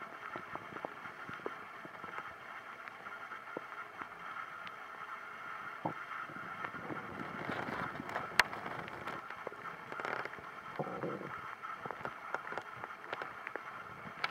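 Stomach gurgling and rumbling over a steady hiss, with many small irregular clicks, one sharp click a little past halfway and a longer gurgle about three quarters of the way through.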